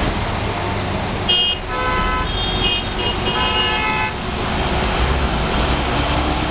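Volvo B7R city bus's rear-mounted six-cylinder diesel engine running with a steady low rumble. Several vehicle horns honk at different pitches from about one to four seconds in.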